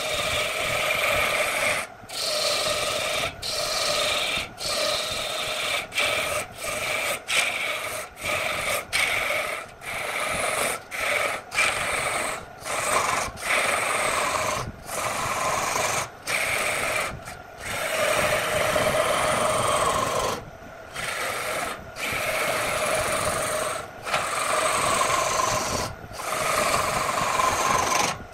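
Wood lathe turning: a hand-held gouge cutting into a spinning wood blank, a steady rasping scrape with a ringing tone in it, in repeated passes broken by brief gaps as the tool comes off the wood.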